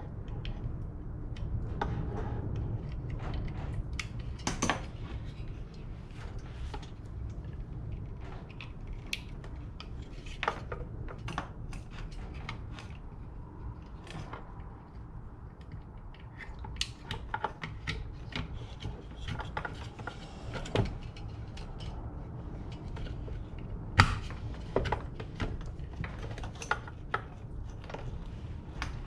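Scattered clicks, knocks and rubbing of diesel heater parts being handled and fitted back into the heater's housing, over a steady low rumble. The loudest knock comes about 24 seconds in.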